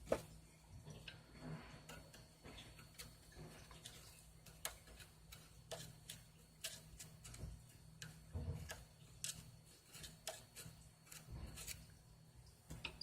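Faint, irregular clicks and light taps of small metal parts being handled while an opened Craftsman ratchet is greased.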